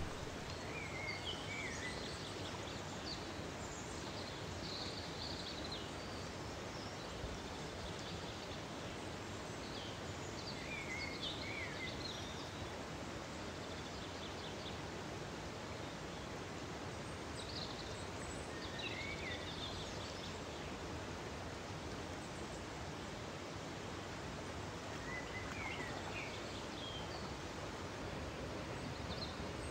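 Steady rush of a mountain stream, with short high bird chirps every few seconds.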